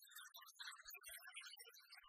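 Faint documentary background music, very quiet.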